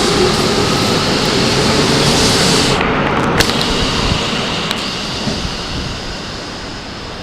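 Running noise of a Keikyu 1500-series train pulling out of the station and fading away: a loud, even rush whose high hiss drops off about three seconds in, then slowly dies down, with a couple of sharp clicks along the way.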